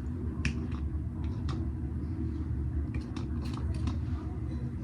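Steady low rumble of room noise with a few faint clicks and soft handling sounds.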